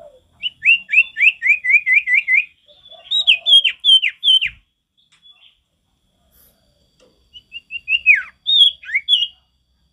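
Common iora (sirtu) singing: a fast run of about ten short down-slurred whistles, then four longer whistles sweeping down from high to low. After a pause of about three seconds, another phrase of quick notes ends in long down-slurred whistles.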